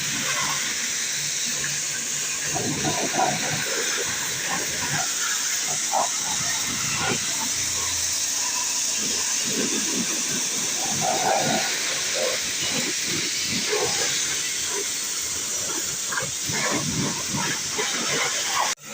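Pressure washer jet spraying water onto a motorbike: a steady high hiss with irregular spattering as the water strikes the bike's surfaces. The sound drops out for a moment near the end.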